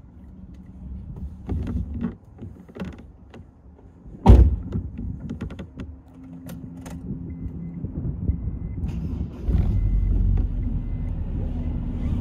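A driver climbing into a Honda S2000: rustling and clicks, with a heavy thud about four seconds in. From about nine seconds in, the car's low engine rumble grows louder, with a faint regular beeping behind it.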